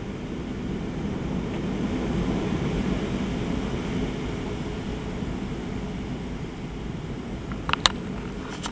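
Storm wind buffeting the microphone as a steady low rumble that swells and eases, with a couple of sharp clicks near the end.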